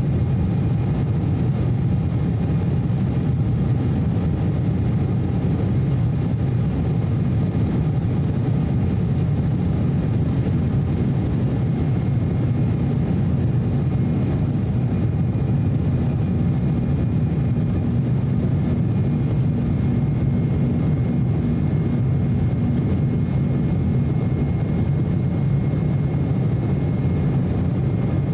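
Cabin noise of an Embraer E190 in its climb after takeoff: a steady, loud low rumble from the wing-mounted GE CF34-10E turbofans, with faint steady engine whine tones above it.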